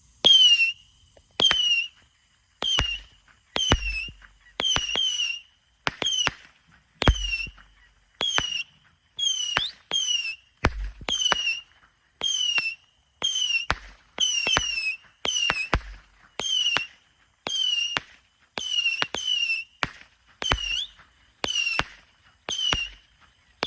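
Red Rhino Saturn missile battery firing its small whistling rockets one after another, a little under one a second, about two dozen shots. Each shot is a sharp crack followed by a short whistle that falls in pitch.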